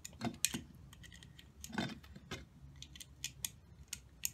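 Irregular light metal clicks and clinks from a threaded coilover sleeve on a strut being worked by hand, its Allen set screws being loosened so the sleeve can be turned.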